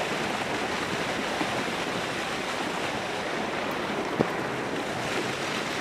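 Steady rushing outdoor noise, an even hiss like wind or moving water, with one short sharp click about four seconds in.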